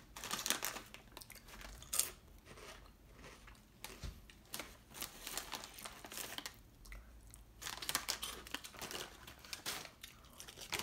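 Chip bag crinkling and rustling as it is handled, mixed with the crunch of chips being chewed, in short irregular bursts.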